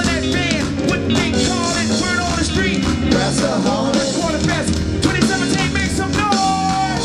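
Live brass funk band playing loud: drum kit under trombone and trumpet, with a vocalist on microphone.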